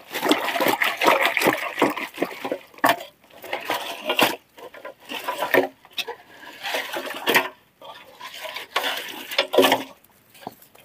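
Palmyra sprouts being washed by hand in water in a metal pot: irregular sloshing and splashing, with the stiff sprouts knocking against each other and the sides of the pot.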